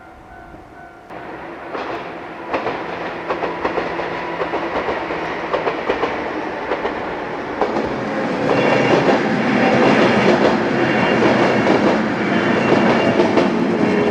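JR 103 series electric train passing with its wheels clacking over the rail joints. The clacking grows louder about eight seconds in as the cars pass closest.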